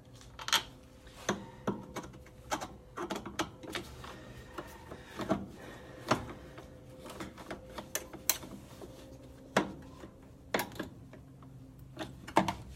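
Irregular clicks and knocks of parts and tools being handled while working on a top-load washing machine's underside, with a faint steady hum beneath.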